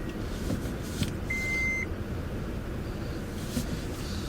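Force Gurkha's diesel engine running with a steady low rumble while the 4x4 is being put into low range, with a single short electronic beep about a second and a half in.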